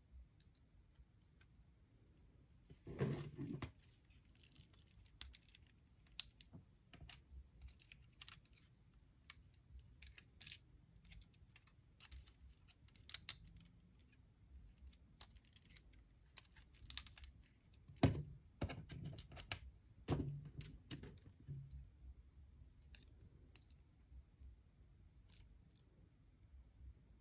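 Small black Lego pieces of a micro-scale ship model being pulled apart by hand: a run of light plastic clicks and snaps, with louder clusters about three seconds in and again around eighteen to twenty-one seconds in.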